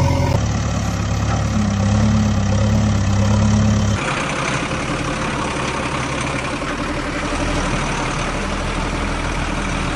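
Heavy engine idling sound effect: a steady low drone standing in for the toy wheel loader and tractor. About four seconds in it cuts abruptly to a thinner, hissier engine sound.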